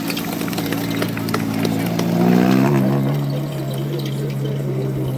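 Renault Clio rallycross car's engine running hard on the dirt track: its note rises about two seconds in to the loudest point, then holds steady as the car comes past.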